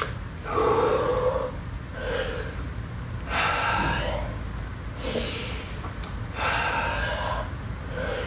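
A man breathing deeply and audibly, slow breaths in and out in time with cat-cow spine stretches, about six breaths evenly spaced.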